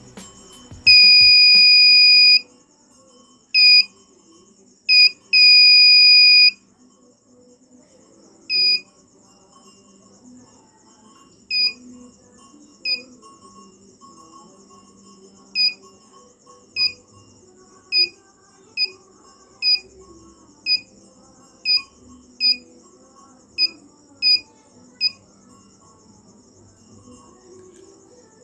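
Piezo buzzer of a homemade 9 V buzz wire game sounding a steady high tone each time the hook touches the copper wire. It starts with a few longer buzzes, the longest over a second, then turns into a string of short beeps about a second apart.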